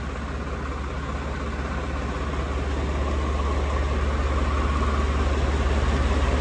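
Swaraj 855 tractor's diesel engine idling steadily with a low, even running note, growing gradually louder.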